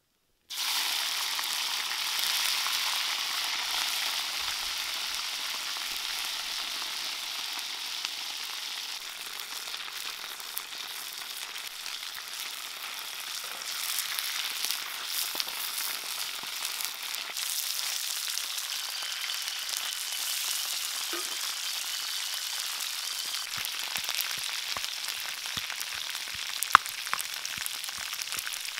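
Insects frying in hot oil in a wok: a loud sizzle starts suddenly about half a second in, then settles into a steady sizzle with scattered pops and crackles, one sharp pop near the end.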